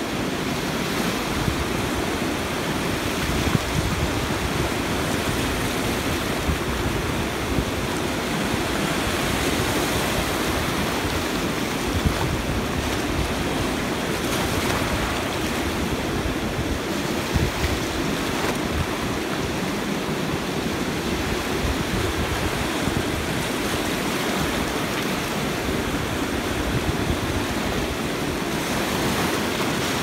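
Fast-flowing muddy river rushing steadily: a constant, even noise of turbulent water, with a few brief louder moments.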